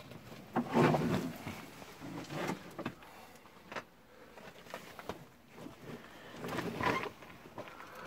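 Scraping and rustling of a caver's coveralls and boots against rock and loose earth as he climbs down into a narrow passage, in several separate bursts.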